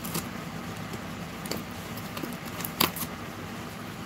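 Scissor blade slitting packing tape along a cardboard box: a few faint scrapes and ticks, with one sharper click near three seconds in.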